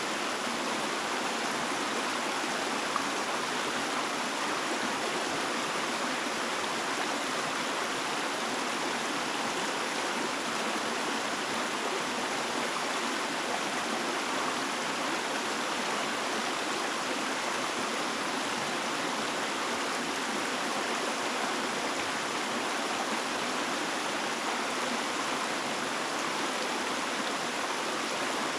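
Running water rushing steadily and evenly, with no birds or other sounds over it.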